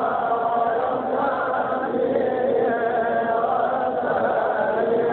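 Chanted recitation of an Islamic devotional qasida, the voice sustaining long melodic notes at a steady level.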